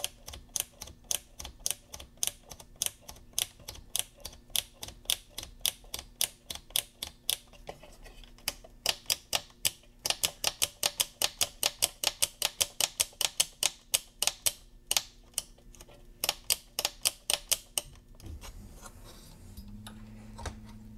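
Rotary level controls of a KLH Model Five speaker crossover being turned back and forth through their detents: a long run of sharp clicks, about three to five a second, working freshly applied DeoxIT D100 into the metal-on-metal switch contacts to clean them. The clicking stops near the end, leaving a faint hum.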